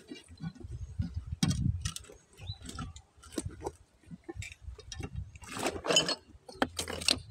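Irregular knocks and clinks of an iron crowbar and loose stones against the split boulder as it is pried apart, with a brief clatter of rock pieces shifting a little past the middle.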